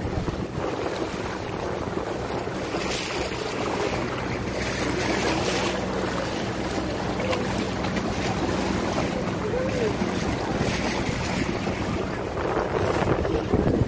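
Wind buffeting the microphone over a steady low engine hum.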